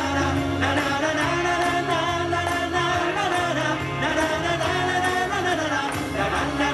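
Live band performing a pop song: a melody line over bass and a steady beat.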